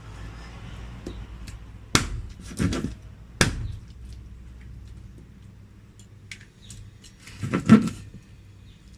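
Kitchen utensils and cookware knocking and clattering: a sharp knock about two seconds in, a couple more within the next second and a half, and a longer clatter near the end, over a low steady hum.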